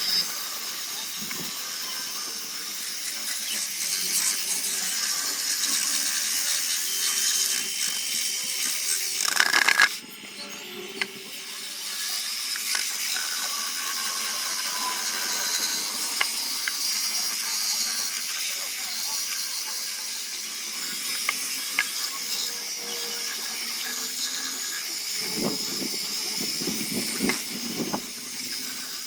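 A power tool working wood, giving a steady hiss that drops out briefly about ten seconds in and then picks up again.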